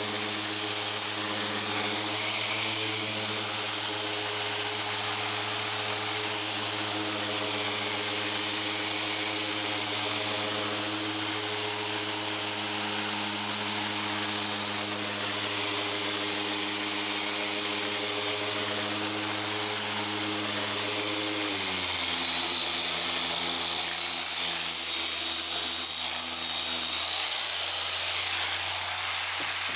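Random orbital sander running with a 220-grit disc on a Corian solid-surface countertop, giving a steady motor hum and a high whine. About two-thirds of the way through, its pitch drops as the sander slows, and it keeps running at the lower speed.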